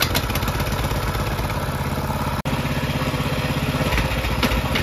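Mini bike's small single-cylinder engine running at a steady idle just after being pull-started, its freshly cleaned carburetor now letting it run properly. The sound drops out for an instant about halfway through.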